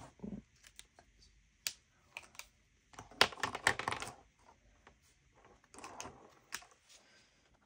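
Plastic felt-tip markers clicking and clattering as they are handled and set down on a table, with a busy run of clicks about three seconds in.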